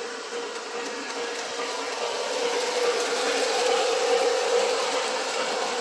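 O-gauge three-rail model train running fast on the track, a steady whirring rattle of motor and wheels with a constant hum, growing louder as it passes close and loudest about four seconds in.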